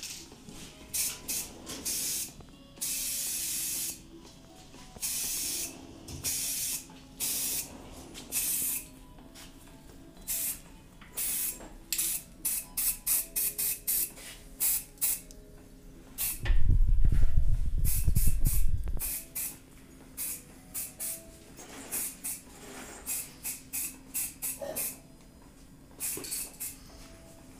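Aerosol spray-paint can hissing in repeated bursts, a few held for about a second and many short puffs. About halfway through, a loud low rumble lasts roughly two seconds.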